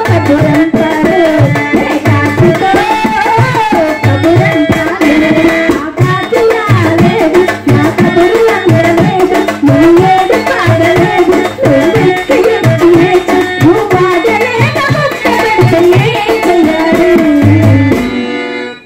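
A woman singing a Telugu folk song through a PA microphone over a steady hand-drum beat. The music drops away sharply near the end.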